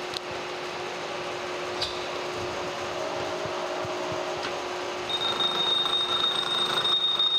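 Kearney & Trecker horizontal milling machine running, with a form gear cutter taking a pass through a cast-iron gear blank. There are a few light ticks, then about five seconds in the sound gets louder and a steady high-pitched whine sets in as the cutter bites deeper into the tooth space.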